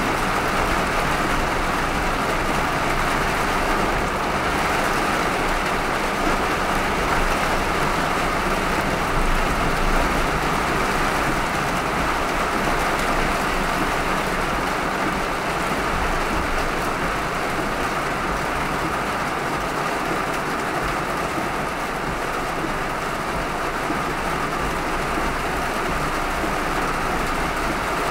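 Heavy rain and car tyres on a flooded road, heard as one steady hiss while driving through a downpour.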